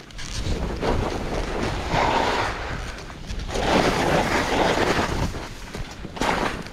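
Skiing at speed: wind rushing over the microphone and skis sliding and turning on snow, a noise that swells and eases a few times.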